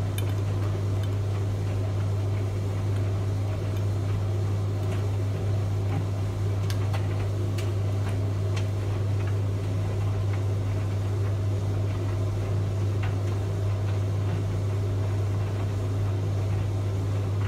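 Steady low hum from a machine or electrical appliance, unchanging throughout, with a few faint ticks about halfway through.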